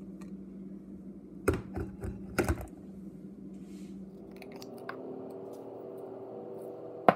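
Home espresso machine running with a steady hum that stops about four seconds in. Glass cup knocking and clinking several times as it is handled, and a sharp knock near the end.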